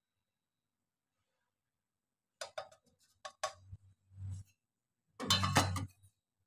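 A few sharp taps and clicks, then a louder clatter near the end: a stainless steel bowl knocking against a plastic mixing bowl as sifted flour is shaken out of it and the bowl is taken away.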